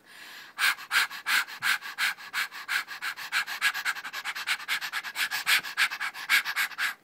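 A person panting rapidly: a softer breath at the start, then quick huffing breaths at about seven a second.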